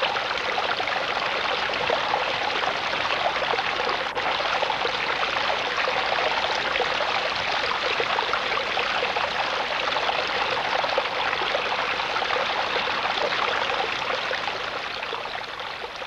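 Water from a small stone spring running and trickling steadily over rocks into a pool. It fades out near the end.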